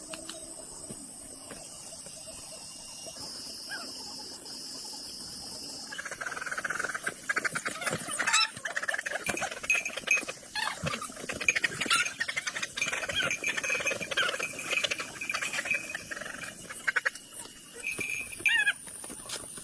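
Insects trilling steadily. About six seconds in, a busy run of short chirps and sharp clicks joins, like poultry calling and pecking.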